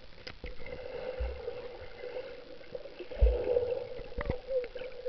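Muffled underwater sound of a camera held below the surface of a lake: water moving around the microphone with a wavering hum and dull low thumps, about a second in and again about three seconds in.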